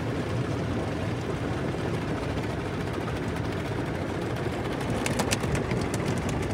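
Automatic car wash heard from inside the car: rotating cloth wash brushes scrubbing over the side window and body with water running, a steady swishing rumble. About five seconds in, a cluster of sharp ticks and slaps joins in.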